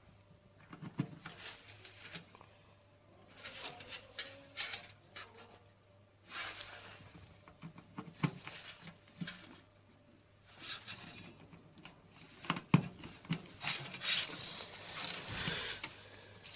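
Scattered clicks, taps and rustling as cables and small connectors are handled inside a PC case, with a few sharper plastic clicks, the loudest near the end.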